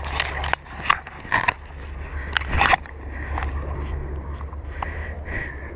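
Wind buffeting the microphone as a steady low rumble, with several sharp rustles and scrapes of grass, clothing and gear in the first three seconds as the freshly landed parachutist moves in tall grass.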